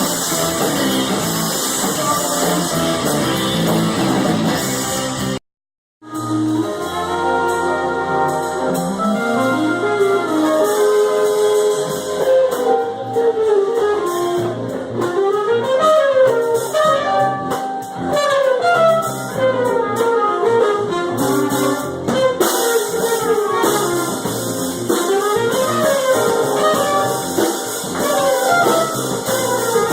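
Music: a band playing, with a brief dropout about five seconds in, then an instrumental led by horns over guitar and drums.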